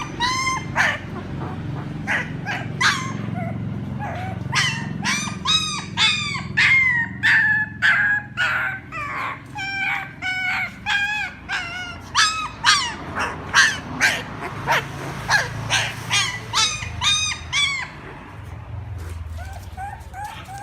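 Puppy crying: a rapid series of short, high-pitched whimpering cries, about two a second, that thin out and grow quieter near the end.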